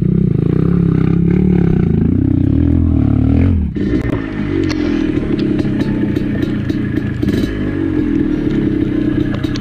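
Dirt bike engine revving up and down under load as the bike is worked up a muddy, overgrown trail. About four seconds in the revs drop to a lower, steadier running, with scattered clicks and knocks.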